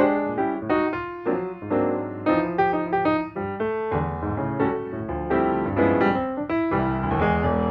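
Background piano music: a run of quick notes struck one after another with a steady pulse.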